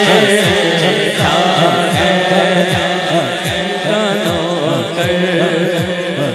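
A man sings a devotional manqabat into a microphone, holding long ornamented notes, over a steady low beat of about two falling-pitch thumps a second. It slowly fades.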